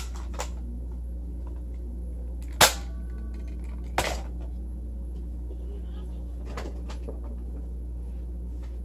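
A few sharp knocks over a steady low hum, the loudest about two and a half seconds in and another at four seconds.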